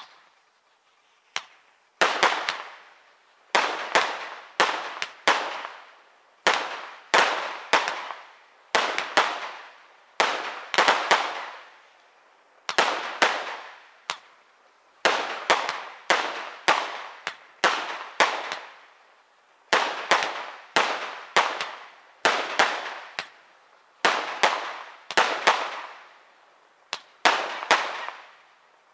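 Aerial fireworks going off in a quick series of sharp bangs, often two or three close together, each trailing off in a short echo. They start about two seconds in and keep coming at roughly one or two a second.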